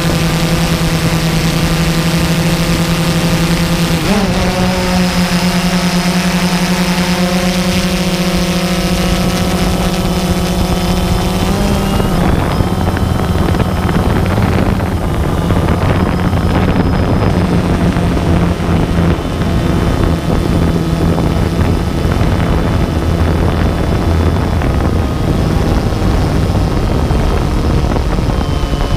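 Multirotor drone's electric motors and propellers whining steadily, with a shift in pitch about four seconds in and again about twelve seconds in, after which the sound turns rougher.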